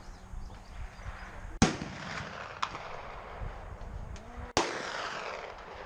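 Two loud rifle shots about three seconds apart from black-powder single-shot cartridge rifles on the firing line, each followed by a rolling echo. A fainter crack comes between them.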